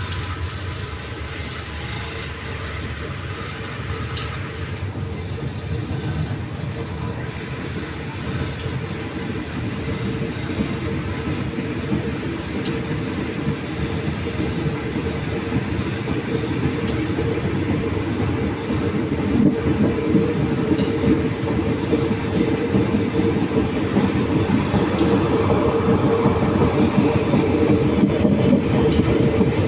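Passenger train pulling out of a station, heard from on board: wheels running on the rails with a steady rumble that grows gradually louder as it gathers speed.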